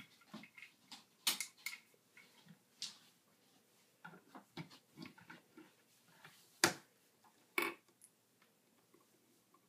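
Scattered light clicks and taps of plastic toy parts being handled, with a few sharper knocks, the loudest about two-thirds of the way through.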